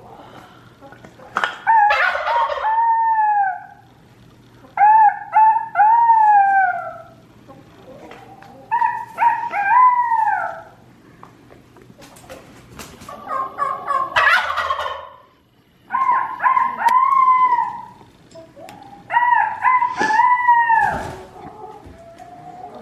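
Turkeys gobbling and a rooster crowing: about six loud calls a few seconds apart, each a quick stuttering run of notes ending in a drawn-out arching note.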